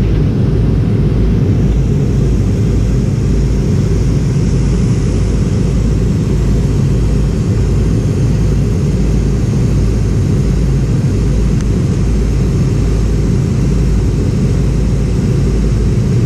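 Steady, loud cabin rumble of a McDonnell Douglas MD-88 airliner in flight on descent: rushing airflow and its rear-mounted Pratt & Whitney JT8D turbofans, heard from a window seat over the wing.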